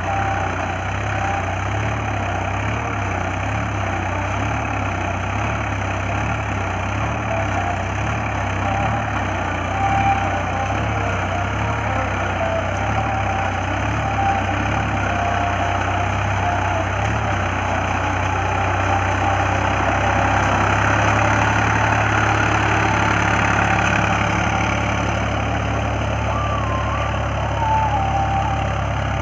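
Sonalika tractor's diesel engine running under load as the tractor works in deep paddy mud. The engine note pulses evenly for the first half, then steadies and grows a little louder about twenty seconds in.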